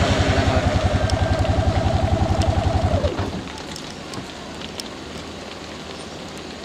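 Bus engine idling with a rapid, even throb that dies away about three seconds in. A quieter steady hiss with faint ticks follows.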